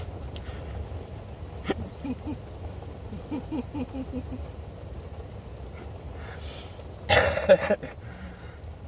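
A steady low background rumble, and about seven seconds in a short, loud throaty sound from a person, like a cough or throat-clear.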